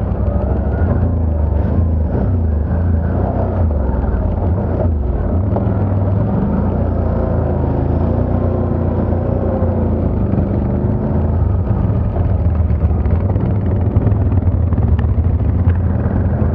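ATV engine running under way, its revs rising and falling.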